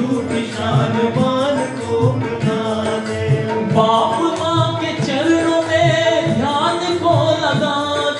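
Hindi devotional bhajan, sung by a man's voice at the microphone, with a second man and a woman joining in.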